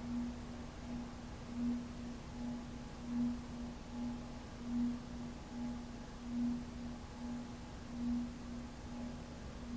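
Moss Marco Polo ceiling fan's CEC motor running with a steady electrical hum that swells and fades rhythmically, a little faster than once a second.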